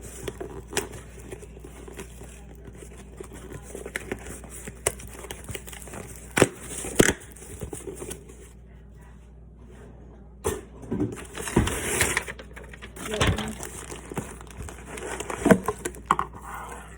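Packaging being crinkled and torn open by hand, in irregular rustling bursts with sharp crackles, loudest around the middle and near the end.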